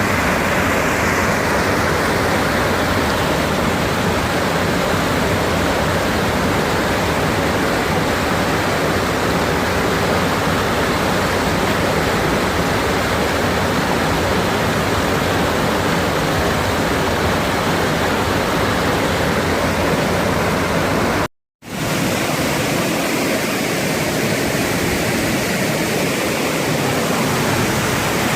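Waterfall: rushing water making a loud, steady noise. It cuts out completely for a split second about three-quarters of the way through, then resumes.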